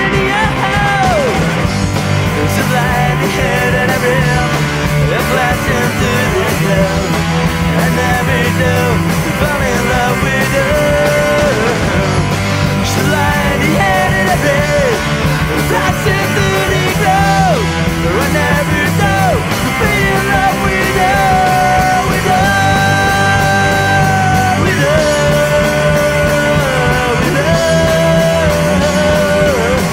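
A rock band playing a song, with a lead line of long held notes that bend in pitch over steady bass and drums.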